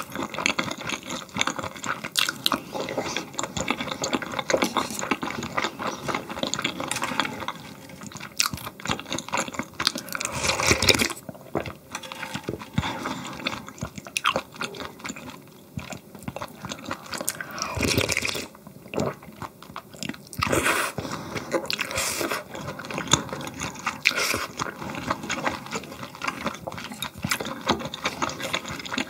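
Close-miked eating of marinated pork ribs and cold noodles in iced broth: steady chewing and biting with crunchy, wet mouth sounds, broken by a few louder slurping bursts partway through.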